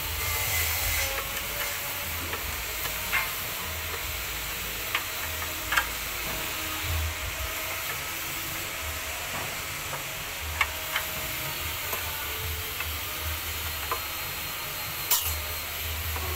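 Steady hiss with scattered sharp clicks and creaks as a hydraulic jack is pumped to press a steamed teak chair back around a steel-strapped bending form. The clicks are irregular, about eight over the stretch, with the loudest around six seconds and fifteen seconds in.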